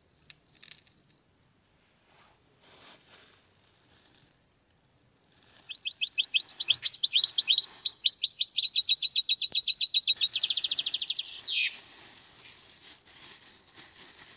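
A songbird singing a loud, fast run of rapidly repeated trilled notes for about six seconds, changing its note pattern several times and ending in a quick downward sweep. Faint rustling comes before and after it.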